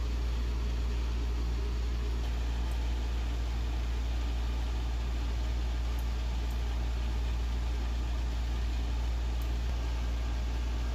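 A steady low hum with an even hiss over it, unchanging throughout.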